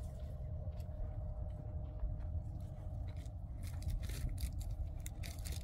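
Wind buffeting the microphone with a steady, uneven low rumble. In the second half, scattered sharp clicks and rustles come in over it.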